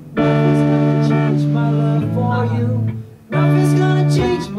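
Band instruments playing long, evenly held chords, each ringing about two seconds. The chord changes to a lower one about two seconds in, breaks off briefly, and a new chord starts a little after three seconds.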